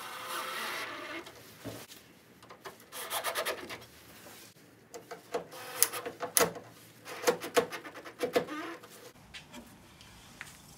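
A screw being driven into the plastic grill trim and its mount, rubbing and squeaking in short spells with scattered clicks, as the trim is fastened just enough to hold it in.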